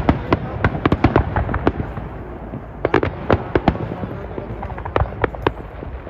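Fireworks going off: a rapid, irregular run of sharp bangs and crackles, thickest in the first two seconds, thinning out in the middle, with more clusters about three and five seconds in.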